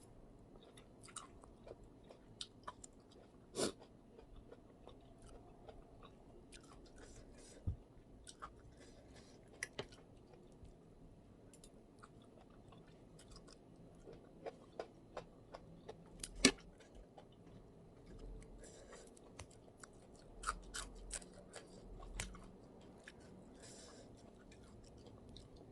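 A person chewing a mouthful of instant-noodle salad with shrimp and squid, with scattered soft mouth clicks and a few sharper crunchy bites.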